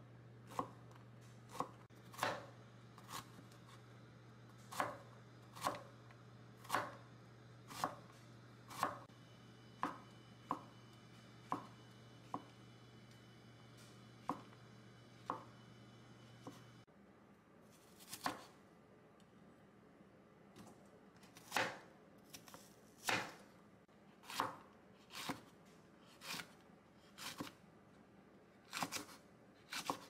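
Chef's knife slicing vegetables on a wooden cutting board: zucchini, then shiitake mushrooms, then green chili peppers. Each cut lands as a sharp knock of the blade on the board, at an unhurried pace of about one a second.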